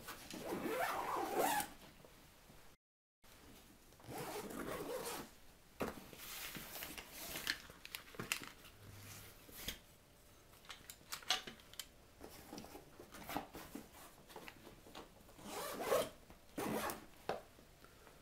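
Zipper of a camera backpack being drawn along in several quick runs, between rustling and short clicks of straps and buckles as the bag is closed and packed.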